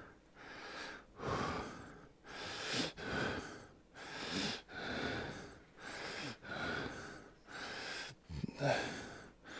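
A man breathing hard from exertion during a bodyweight back exercise: about a dozen quick, even breaths in and out, a little more than one a second.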